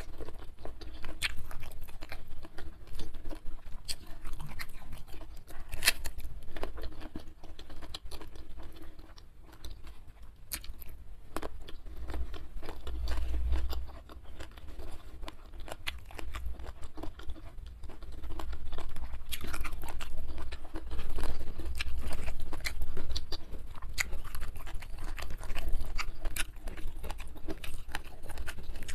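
Close-miked chewing and crunching of raw vegetables and rice, with many sharp clicks and some low thuds around the middle.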